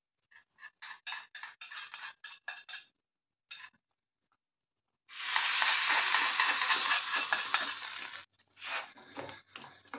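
A metal spoon clinks and scrapes against a small steel tadka pan, several quick clicks a second. About five seconds in comes a loud hissing sizzle of hot ghee tempering on the saag, lasting about three seconds and stopping abruptly.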